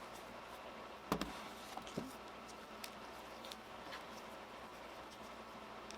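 A few light clicks and taps from handling the open laptop and its small parts, the sharpest about a second in, over faint room hiss.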